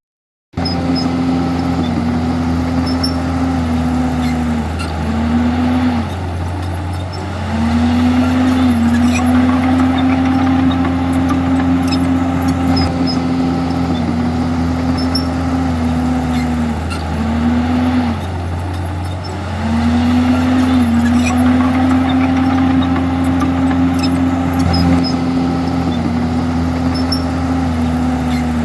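Komatsu D51EX bulldozer's diesel engine running under load: a steady drone whose pitch sags briefly and recovers every few seconds, with two somewhat quieter stretches.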